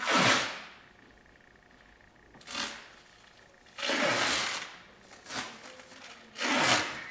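Elastoplast elastic adhesive tape being pulled off its roll and wrapped around a horse's leg bandage, tearing free in five short pulls, the longest about four seconds in.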